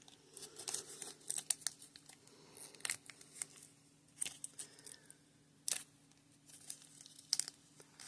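Plastic packaging crinkling and tearing, with scattered sharp clicks as small plastic toy parts are handled.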